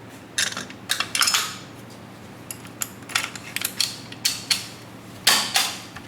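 Metal parts of a WE AK74 gas blowback airsoft rifle being handled: irregular sharp clicks and short metallic scrapes and rattles.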